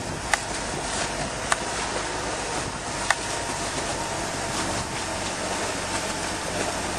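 Engine of a rebuilt Nodwell tracked vehicle running steadily, with three sharp clicks in the first few seconds.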